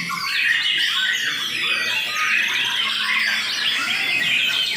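White-rumped shama (murai batu) singing a dense, unbroken song of rapid whistles, chirps, glides and trills, packed with varied fill phrases.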